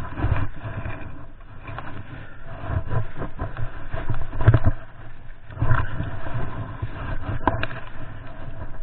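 Handling noise from working a wooden stake and trap cable in creek-bank mud: scrapes and a few sharp knocks, over uneven low rumbling on the microphone.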